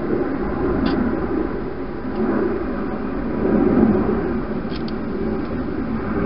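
Wild hedgehog eating inside a plastic feeding box, heard as an uneven rough rumble with a few faint clicks.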